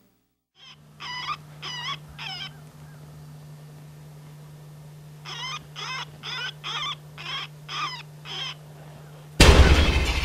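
Two runs of short, wavering, high-pitched animal-like cries, four and then after a pause about seven, over a low steady hum. A loud sudden blast comes near the end.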